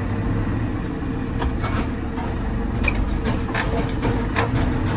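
JCB 4CX backhoe loader's diesel engine running steadily, with a handful of short sharp clicks and rattles over it in the middle few seconds.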